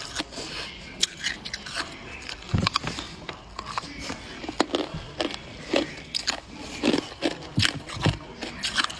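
A clear ice cube being bitten and crunched between the teeth: an irregular run of sharp cracks and crunches as the cube breaks up and is chewed.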